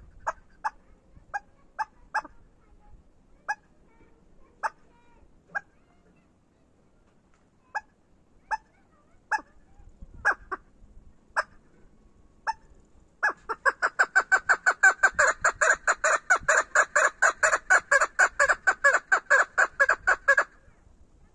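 Female chukar partridge calling: short, sharp single notes spaced about a second apart, then, about thirteen seconds in, a fast, loud run of calls at about six a second that lasts some seven seconds and stops shortly before the end.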